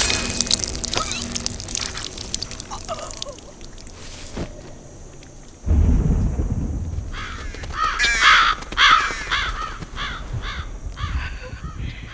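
A sharp hit right at the start. About six seconds in, a deep rumble of thunder comes in suddenly, and crows caw several times over it.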